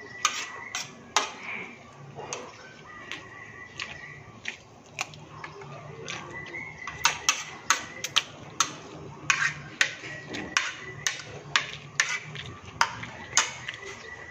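Metal spoon clinking and scraping against a ceramic plate while eating, a run of sharp clicks that comes thickest in the second half.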